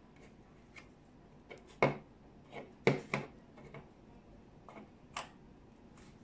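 A small magnetic phone mount and its metal plate handled and set down on a tabletop: a scattering of sharp clicks and taps, the loudest a little under two seconds in and a close pair about three seconds in.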